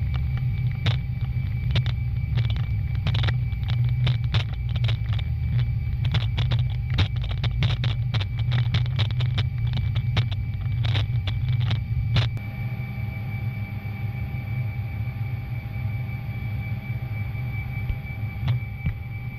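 Jet engine noise heard inside a fighter's cockpit as it rolls along the runway: a steady low rumble with a thin high whine. Quick knocks and rattles come thickly for about the first twelve seconds, then only now and then.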